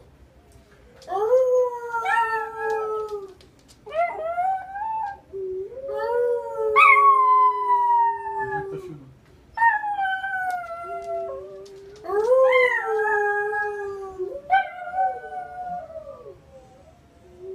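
Schnauzer puppy howling: a run of long howls with short breaks between them, each rising quickly and then sliding slowly down in pitch.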